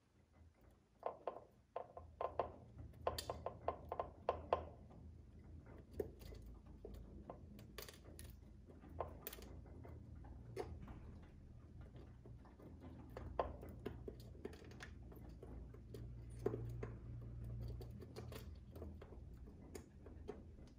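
Pigeons pecking seed from a bowl on a window ledge: irregular beak taps and clicks, thickest in the first few seconds, then scattered, heard faintly through the window glass.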